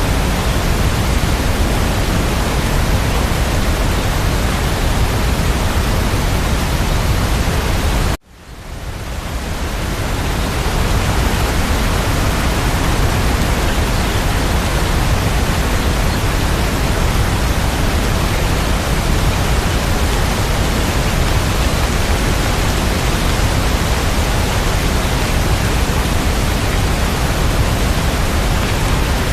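Steady, dense rain sound with no distinct drops, heavy in the low end. About eight seconds in it cuts out suddenly and fades back in over a couple of seconds, like the seam of a looped track.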